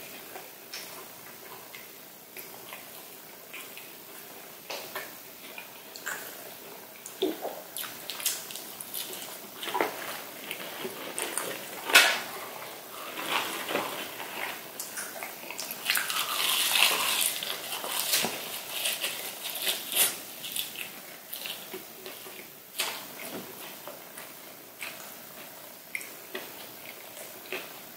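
Close-up eating sounds of Chicken McNuggets and fries: crunching and chewing, wet mouth and sauce-dipping sounds, with scattered sharp crackles and clicks. The crackling is densest about sixteen to eighteen seconds in, with one sharp click around twelve seconds.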